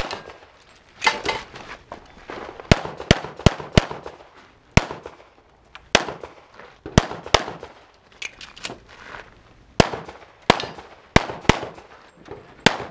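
Pistol shots, about fifteen sharp cracks, many in quick pairs about a third of a second apart, with gaps of a second or more between strings.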